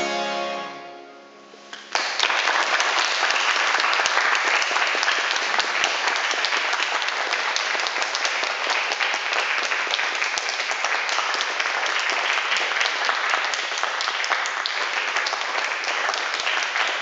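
A harpsichord's final chord rings and fades away. About two seconds in, an audience breaks into steady applause.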